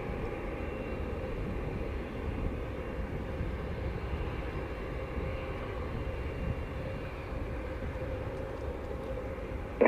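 Steady jet engine noise from a Boeing 737 MAX 8's CFM LEAP-1B turbofans as the airliner climbs out just after takeoff, a low, even rumble with a faint steady whine.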